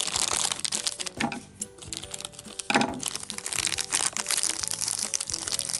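Crinkly foil wrapper of a Num Noms blind-pack toy crackling as hands pull it open, over light background music.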